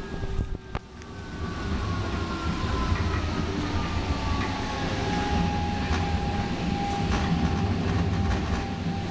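Alstom Citadis Spirit light-rail train in motion, heard from inside the car: steady rumble of wheels on rail with an electric drive whine. The whine slides down in pitch over the first few seconds and then holds steady, with a few faint clicks from the track.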